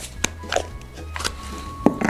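Light background music under the sharp plastic clicks and scrapes of a Play-Doh tub being handled and its lid pulled open, with the loudest snap near the end.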